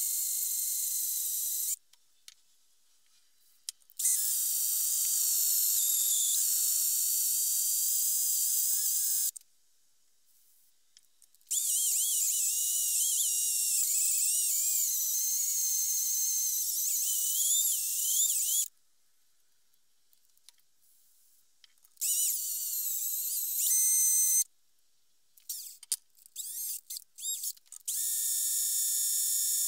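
Twist drill bit cutting into the steel of an axe head: a high-pitched, wavering squeal and hiss. It comes in several stretches of a few seconds, each cutting off suddenly into silence, with a patter of clicks near the end.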